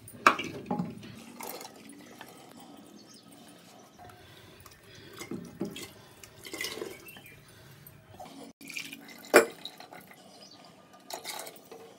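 Thick ground masala paste poured and scraped from a steel container into a pressure cooker full of broth: wet plops, splashes and drips, with a couple of sharp clinks of steel against the cooker.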